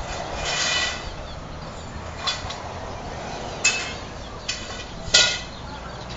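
Birds calling: about five short, high-pitched cries spread across a few seconds, the loudest near the end, over a steady low outdoor background.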